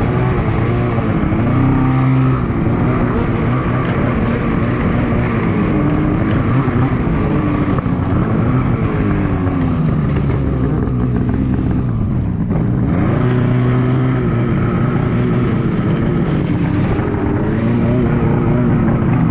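Polaris Switchback Assault 850 snowmobile's two-stroke twin engine running while riding, its pitch rising and falling as the throttle is worked, easing off briefly about two-thirds of the way through.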